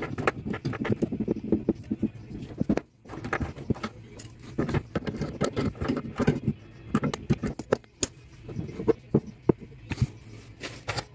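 Irregular metallic clinks, knocks and rattles of a copper water pipe and brass compression fittings being handled and tightened with an adjustable spanner, with short pauses about three and eight seconds in.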